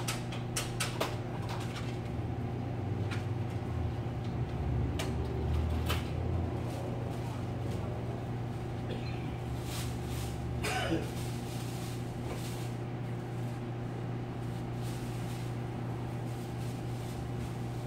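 A steady low electrical hum throughout. Several sharp clicks and knocks come in the first six seconds, and a short falling squeal about eleven seconds in.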